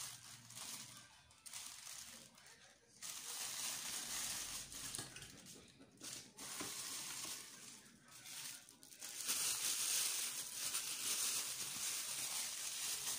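Plastic packing bag crinkling and rustling as it is pulled out of a stainless steel stand mixer bowl. It comes in stretches of a few seconds and is loudest near the end.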